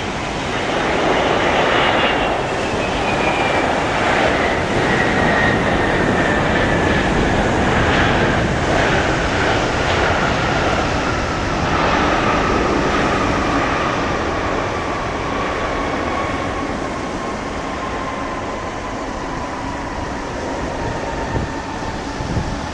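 Twin jet engines of a Boeing 767-300ER airliner on landing, a loud steady rush with a high engine whine that falls slowly in pitch throughout.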